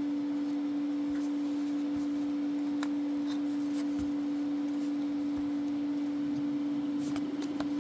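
A steady hum at one unchanging pitch, with a weaker higher tone above it, over a few faint clicks and rustles of trading cards being handled.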